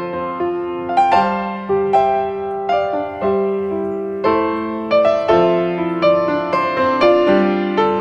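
Background piano music: single notes over lower held notes, each struck and left to ring, changing every half second to a second.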